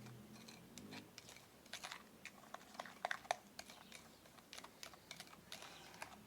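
Faint, irregular clicks and scrapes of a utensil against its container while palm oil, sugar and ground charcoal are stirred together into a paste.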